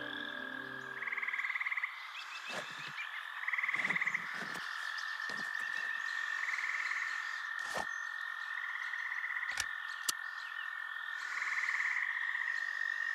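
Forest ambience of pulsing croaking calls, one short call about every two and a half seconds over a steady high-pitched tone, with a few soft clicks and knocks scattered through.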